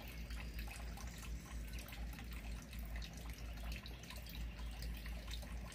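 Garden fountain water trickling and splashing steadily, with many small irregular drips.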